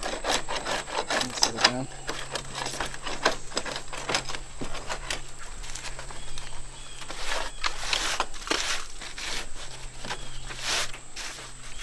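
Hand tools working a wooden board: a hammer knocking and a handsaw scraping, heard as irregular knocks and short scraping strokes, busier about two thirds of the way through.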